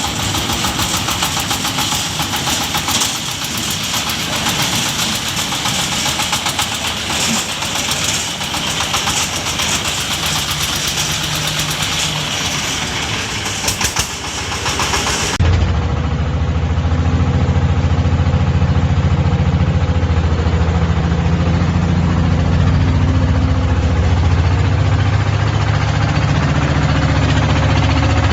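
Diesel engine of a three-wheeled manure collector running with a rapid, even clatter; about halfway through the sound changes abruptly to a deeper, steady engine drone.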